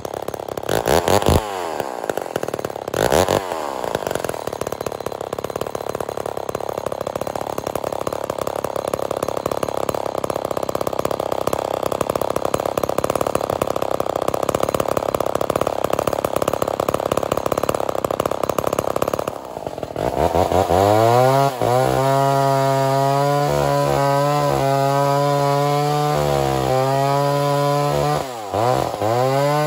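Vintage 68cc Lombard chainsaw on a stump, blipped to high revs twice in the first few seconds and then left idling. After a short break it runs at high revs while cutting a log, its pitch dropping briefly twice near the end.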